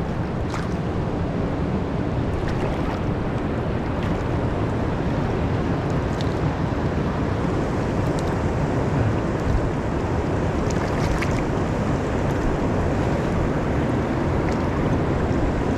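Steady rush of river current flowing over and around rocks, with a few faint small splashes.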